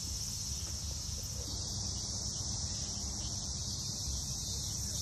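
Steady, high-pitched chorus of insects, with a low fluttering rumble underneath.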